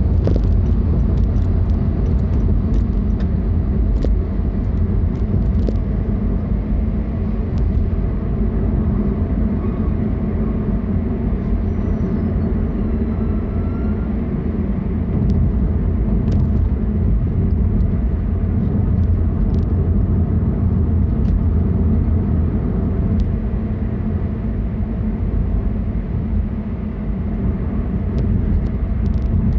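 A car being driven: a steady low rumble of engine and road noise, with a few faint scattered clicks.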